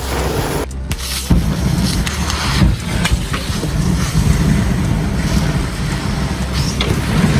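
Tower of stacked matchsticks burning, the match heads flaring in a chain with a loud, steady rush of flame and a few sharp crackles. The sound breaks off briefly about a second in, then comes back.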